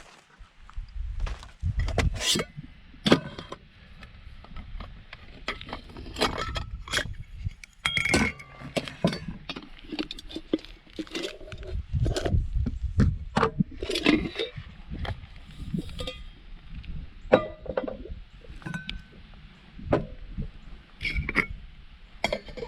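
Irregular clinks, taps and knocks of small hard objects being handled, a few with a brief metallic ring.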